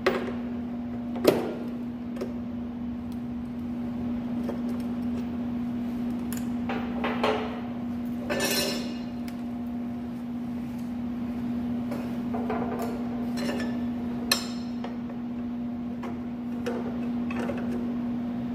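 Scattered metal clinks and knocks, with a couple of short scrapes, from a ratchet wrench and the abrasive chop saw's steel vise fence being loosened and shifted by hand, over a steady low hum. The sharpest knocks come about a second in and near the end.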